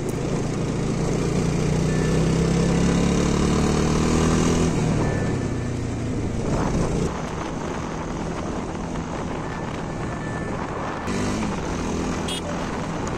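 Motorcycle engine accelerating, its pitch rising for about four and a half seconds, then dropping at a gear change and running on at steadier cruising speed. Wind rushes over the helmet-mounted phone microphone throughout.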